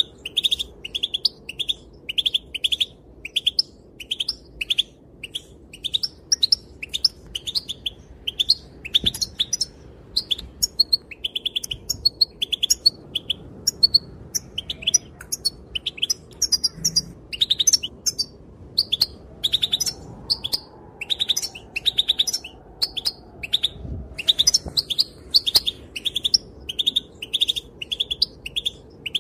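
Female European goldfinch calling: a fast, steady run of short, high chirps, about three a second, broken by brief pauses.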